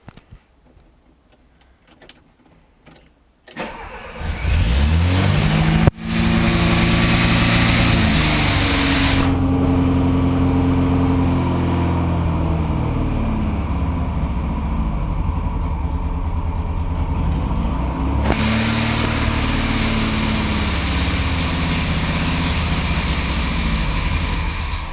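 Car engine with a freshly adjusted carburetor, started about four seconds in. It catches and runs, its revs rising and falling a few times before it holds a steady run.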